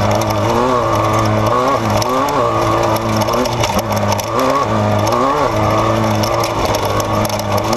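Race vehicle engine running hard, its revs rising and falling again and again, about once a second, as the throttle comes on and off.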